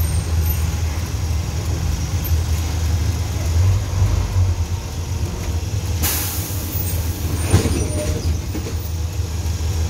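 City bus engine running steadily under the floor, heard from inside the cabin as the bus creeps through traffic. A short hiss of the air brakes about six seconds in, then a sharp knock a second and a half later.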